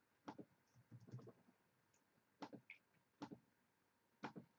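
Faint computer mouse clicks, several of them about a second apart, some coming as quick doubles, as a list on screen is randomized.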